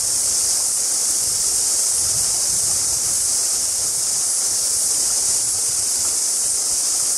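Steady, high-pitched hiss of a cicada chorus from the bush, over the low rush of the river.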